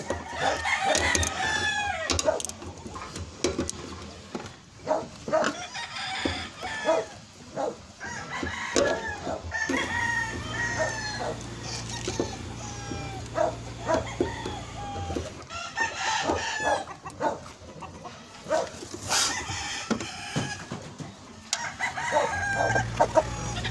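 Chickens clucking and a rooster crowing, with scattered sharp clicks and knocks. A low steady hum comes in about ten seconds in, stops about five seconds later, and returns near the end.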